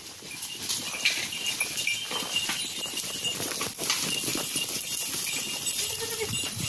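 Goats' hooves walking and scuffing over dry leaves and dirt, with irregular small clicks and leaf rustling.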